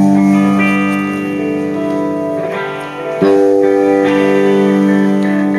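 Guitar strumming two chords, each left to ring out slowly, the second about three seconds in: a guitar being tried out through the PA during a band sound check.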